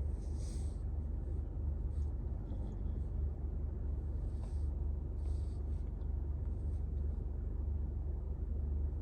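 A sleeping dog snoring, with a soft hissing breath every second or two over a steady low rumble.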